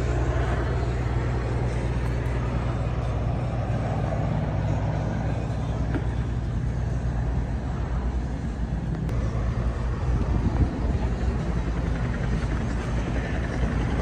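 An engine running steadily with a low, even drone that turns more uneven about halfway through.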